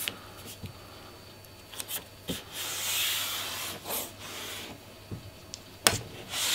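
Shaper's domino-printed adhesive tape being pulled off its roll and rubbed down by hand onto a plywood board, with a short hiss about halfway and a sharp click a little before the end.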